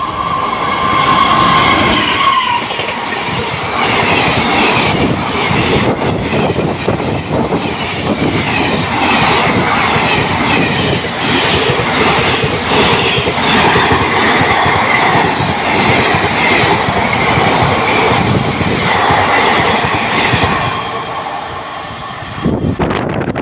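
WAP-4 electric locomotive and its express train passing at about 125 km/h. A horn holds one steady note for the first two seconds or so. Then a long, loud, dense clatter of wheels over the rail joints follows, dropping away near the end.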